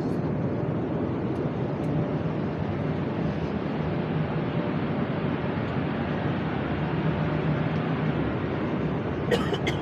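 Steady in-flight cabin noise of an Embraer E190-E2 airliner: the rush of air past the fuselage and the drone of its Pratt & Whitney geared turbofan engines, with a low hum underneath. A few short clicks sound near the end.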